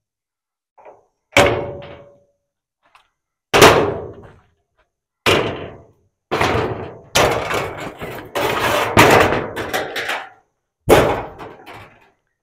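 Sharp knocks and bangs from work on a panel. Three separate knocks come a couple of seconds apart, then a quick run of knocks and rattling lasts about four seconds, and one more knock comes near the end.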